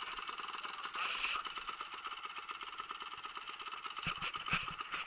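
Dirt bike engine idling steadily with a fast, even pulse, joined by a few dull knocks about four seconds in.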